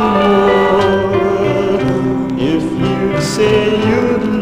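Vintage 45 rpm vocal-group record playing: sustained vocal harmony over orchestral accompaniment, with held notes and slow glides in pitch and no sung lyrics.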